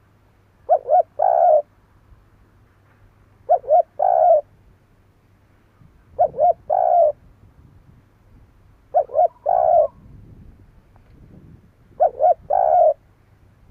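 Spotted dove singing its repeated cooing phrase, two short coos followed by a longer one, five times, about once every three seconds.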